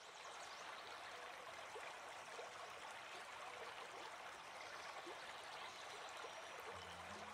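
Faint, steady sound of running water, like a small stream.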